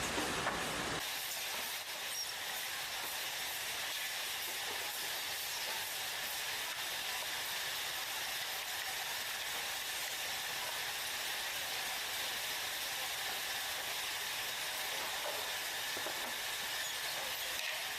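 Steady, even hiss, mostly high-pitched with little low end. A fuller, deeper noise drops away about a second in.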